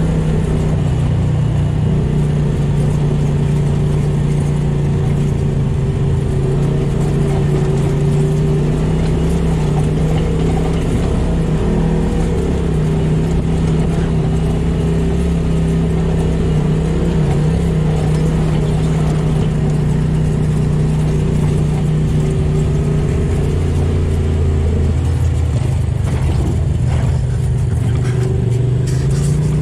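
Polaris RZR side-by-side's engine running steadily while driving a dirt trail, heard from the cab; the engine note drops for a few seconds near the end as it eases off.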